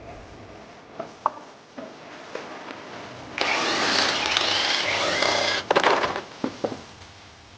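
A power tool runs for about two seconds, loud and steady, then several sharp clacks follow.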